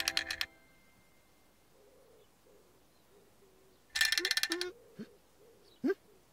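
The tail of a children's song ends, then faint low hooting over a quiet night ambience. About four seconds in comes a short, rapid tinkling rattle, then two brief rising squeaks.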